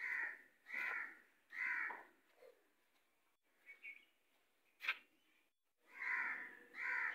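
Crow cawing: three harsh caws in quick succession, a pause broken by a sharp click about five seconds in, then another run of caws near the end.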